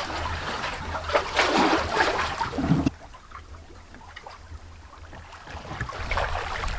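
Water rushing and splashing along the hull of a sailing trimaran under way, with swells of louder rushing. The sound drops suddenly about three seconds in, then builds again toward the end.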